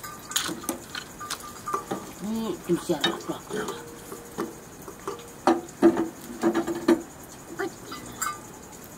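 Metal ladle stirring food in a wok, scraping and clinking against the pan in a run of short knocks, most of them coming close together about two-thirds of the way through.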